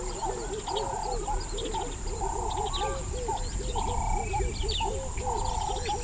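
Dense wetland chorus of animal calls: quick low calls repeating several times a second, a longer, higher call about every second and a half, and scattered high chirps, over a steady high whine.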